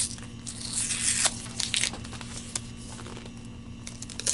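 Packaging on an iPhone box being torn and peeled off, with bursts of tearing and crinkling in the first two seconds followed by a few light clicks and rustles.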